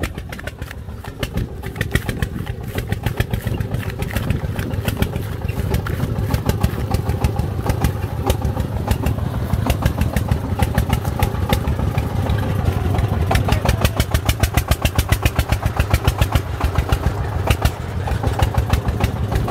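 Single-cylinder diesel engine of a công nông (Vietnamese farm truck) loaded with bricks, chugging in a fast, even beat as it drives along a dirt track, growing louder as it comes closer.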